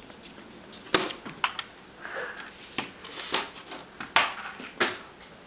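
A run of sharp, irregular clicks and light knocks, about half a dozen over four seconds, with a brief scrape: a cat pawing at the edge of a fridge door.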